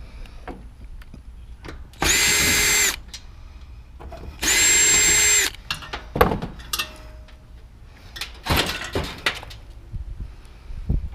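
A power drill running twice, about a second each time, spinning up and winding down while screws are backed out to strip wiring from scrap. Knocks and clattering of metal parts being handled follow.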